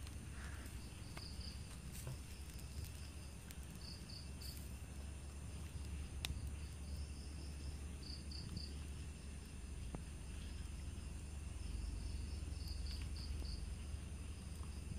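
Crickets and other night insects: short chirps in clusters of two or three, repeating every few seconds over a steady high insect drone, with a low rumble underneath and an occasional sharp click.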